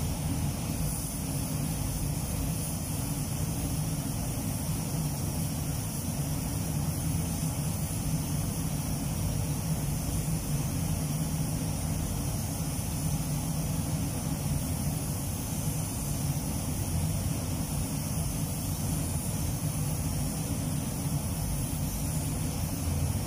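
Steady rush of air in a spray-paint booth: the ventilation fans' low drone with the hiss of a compressed-air spray gun laying on clear coat, unbroken throughout.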